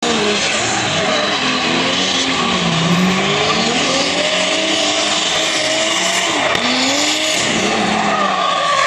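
Drift car's engine revving up and down as it slides sideways through the corners, over a steady hiss of screeching tyres.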